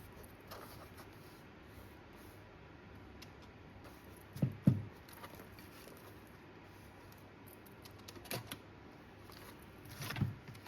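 Quiet handling of paper documents on a copy stand: faint rustling and small clicks, with a dull double thump about four and a half seconds in and softer knocks near the end.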